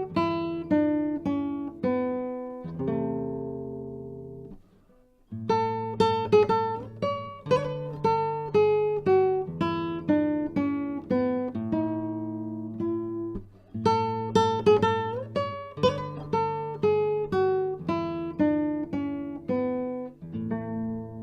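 Spanish guitar playing a dance piece: a run of plucked notes at about three a second, with a brief pause about five seconds in. Near the end it settles on a chord that is left to ring.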